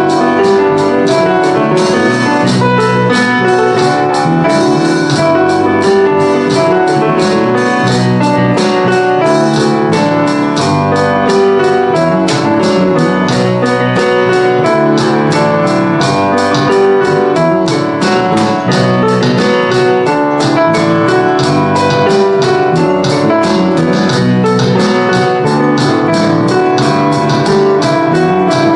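Piano, bass and drums playing a rock song, the piano in front over a steady drum beat.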